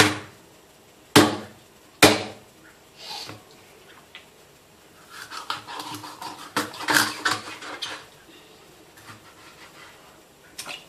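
Kitchen knife chopping through a silver catfish onto a plastic cutting board: three hard chops in the first two seconds, then a run of quicker, lighter cutting and scraping strokes, and one more small knock near the end.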